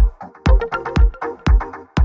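Electronic background music with a steady kick drum about twice a second and short, chopped synth notes between the beats.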